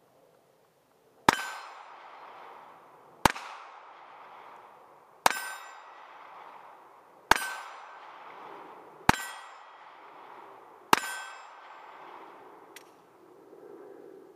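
Ruger LCP .380 ACP pocket pistol fired six times, about two seconds apart, most shots followed by the ringing clang of the steel target being hit. A faint click comes near the end.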